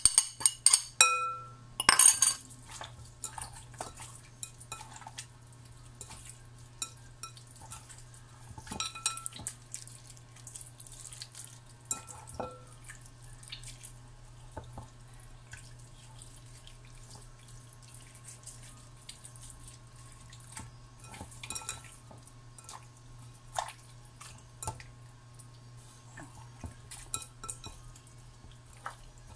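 A few sharp clinks of a ceramic bowl against a glass mixing bowl in the first couple of seconds, the loudest sounds here. Then hands squishing and turning raw chicken marinating in olive oil in the glass bowl: soft wet handling sounds with occasional light knocks on the glass, over a steady low hum.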